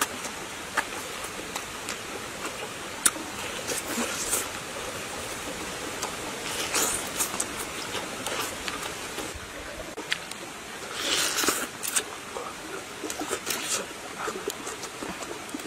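Close-up eating sounds: biting into and chewing soft, juicy food, with many short mouth clicks and smacks and a few brief slurping bursts, the longest about eleven seconds in, over a steady hiss.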